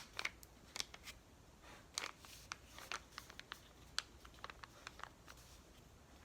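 A sheet of paper being folded in half and creased flat, with scattered faint crackles and scrapes as it is pressed down.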